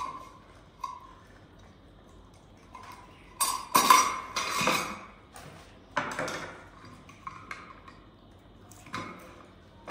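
Tableware clattering during a meal of rice: a few short clinks and scrapes of dishes and cutlery, with the longest and loudest cluster about three and a half to five seconds in.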